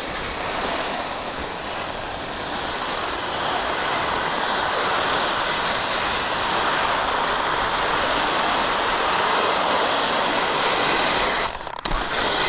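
Skis sideslipping down a groomed race course, their edges scraping the hard-packed snow in a steady hiss that builds over the first few seconds and breaks off briefly near the end.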